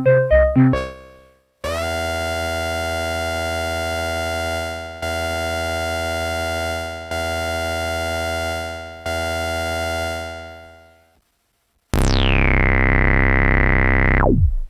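Dave Smith Mopho monophonic analog synthesizer playing presets. A patterned sequence fades out, then a bright sustained note is played four times at the same pitch, each dying away slowly. After a short gap a new patch comes in with a resonant filter sweeping down from very high and settling, then cuts off.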